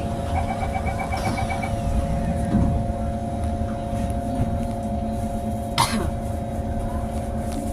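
Singapore MRT train running: a steady low rumble with a constant two-note electric hum. Early on there is a quick run of about ten rapid short beeps, and a single sharp knock comes near six seconds in.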